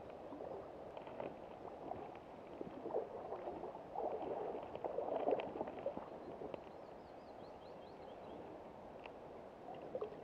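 Faint splashing and sloshing of water as a hooked sea trout is drawn through the shallows at the riverbank and taken by hand, louder in the middle.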